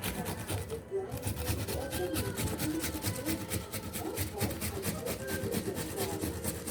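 Onion being grated by hand on a grater: a quick, even run of rasping scraping strokes.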